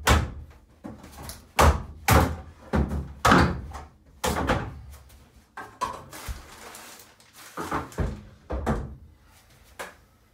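Nextile tub-surround wall panel being lifted and worked off its snap-in tabs: a dozen or so knocks and thunks, roughly one every half second to second, as the panel bumps against the lower panel and the studs. There is a scraping sound about six seconds in.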